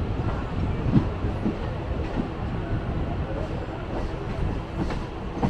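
Train at a station platform: a steady low rumble with a few sharp clacks, the loudest about a second in.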